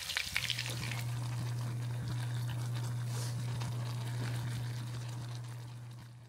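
Instant noodles cooking in a small pot, stirred with wooden chopsticks, with faint sizzling and light clicks over a steady low hum that starts about half a second in. Everything fades out near the end.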